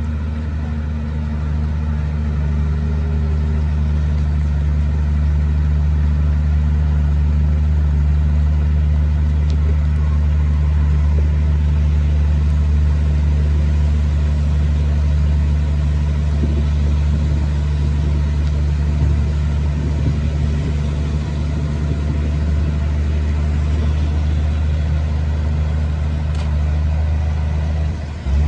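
Heavy diesel earthmoving machine engine running steadily with a deep even hum, dipping briefly near the end.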